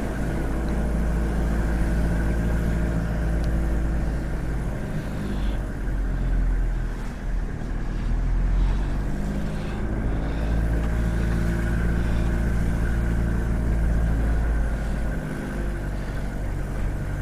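1992 Toyota Hiace's 2.4-litre four-cylinder diesel engine running as the truck drives in second gear at low speed, heard from inside the cab. Its pitch rises and falls a little as the speed changes.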